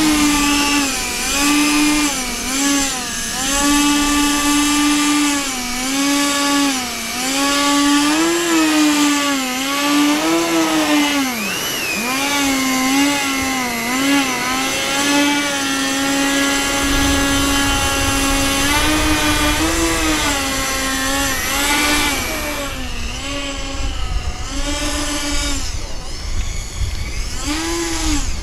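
Electric ducted-fan jet engines of RC model airliners whining, the pitch rising and falling over and over as the throttle is worked. From a bit past halfway a low rumble runs beneath the whine.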